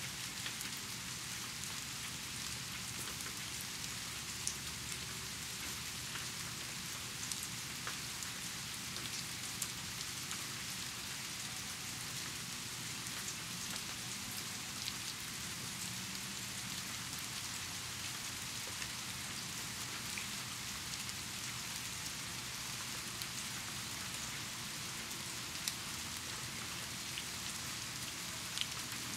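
Steady rain falling: a dense, even hiss of drops, with a sharper single drop striking close by every few seconds.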